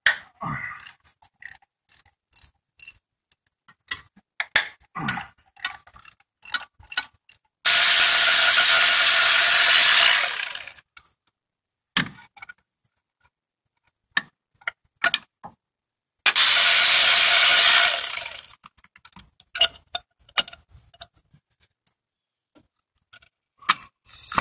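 Hand socket ratchet clicking on bolts, with clinks of tools on metal. Twice, about 8 and 16 seconds in, a cordless power ratchet runs steadily for two to three seconds, spinning the bolts out.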